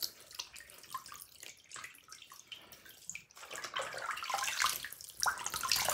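Water splashing and trickling as wet hands rub it through a doll's hair to rinse the hair product out, louder about four seconds in.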